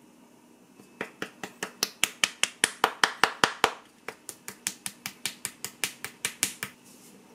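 Knife chopping on a cutting board: two runs of quick, even strokes, about five a second, with a short pause between them.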